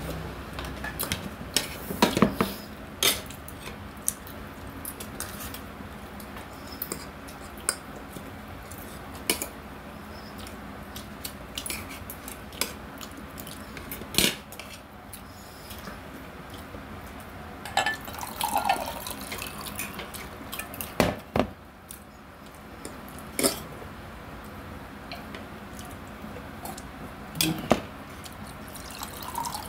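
Spoon and fork clinking and scraping against a plate while someone eats, in irregular sharp clicks every second or two.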